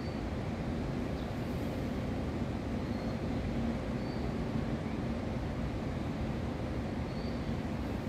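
Steady low rumble of outdoor urban background noise, with a faint steady hum and a few faint, brief high chirps now and then.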